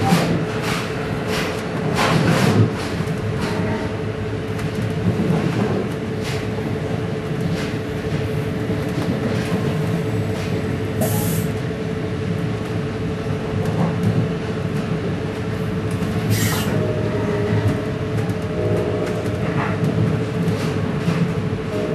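Commuter train running, with a steady electrical hum over a low rumble and scattered knocks and clicks. Two short bursts of air hiss come about eleven and sixteen seconds in.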